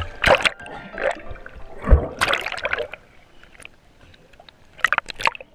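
Lake water splashing and sloshing right against a waterline camera as a swimming border collie paddles close by, in irregular bursts with a quieter lull shortly before the end.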